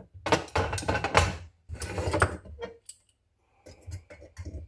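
Hand-tool work on small pressed-steel toy parts: two rough scraping strokes of about a second each, then several light metallic clicks and taps near the end.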